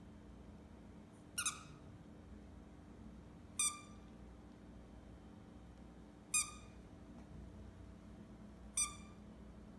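Squeaker in a small dog toy squeaking four times as a Savannah cat bites down on it, each squeak short and high-pitched, about every two to three seconds.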